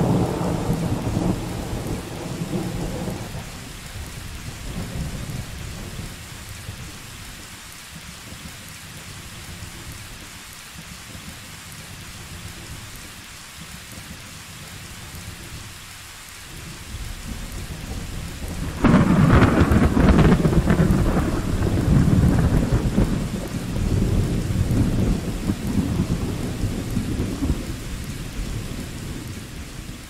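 Thunderstorm: steady rain falling, with the tail of a thunder rumble dying away in the first few seconds. About two-thirds of the way through, a sudden loud thunderclap breaks and rolls on for several seconds before fading back under the rain.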